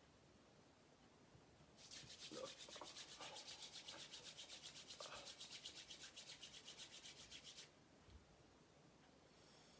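Palms rubbed briskly together, a fast dry swishing of about seven strokes a second that starts about two seconds in and stops abruptly about six seconds later. The rubbing warms the hands for cupping over the eyes in a palming exercise.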